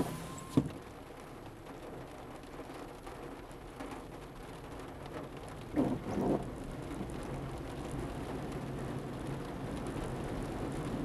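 Steady rain on the car's windshield and roof with the wash of floodwater around the car as it drives through water about a foot deep, heard from inside the car. A brief louder swish comes about six seconds in, and the noise grows slightly louder toward the end.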